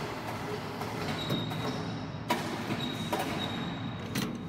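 Factory machinery running: a steady rumble with scattered sharp metallic clicks and knocks, and a faint high squeal that comes in twice.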